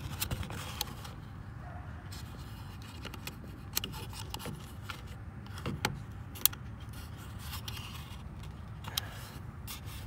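Scattered sharp plastic clicks and light scrapes from a car door speaker's wiring plug and connector pins being worked loose, over a steady low hum.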